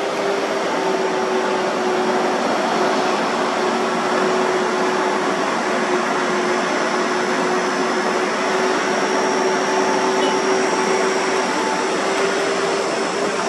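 Heavy diesel trucks passing close by: a steady engine drone under loud tyre and road noise, holding at an even pitch.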